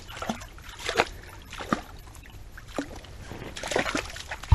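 Footsteps of a person walking a wet forest trail, with a step or scuff about every second and some rustling between.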